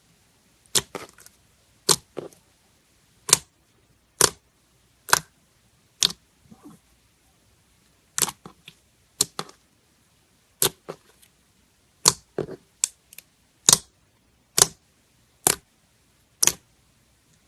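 Slime being pressed and poked, giving sharp popping clicks about once a second, sometimes two in quick succession, with a short gap in the middle.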